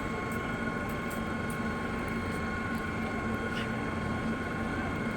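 Electric pipe-threading machine running steadily: a constant motor hum with a steady whine above it and a few faint clicks.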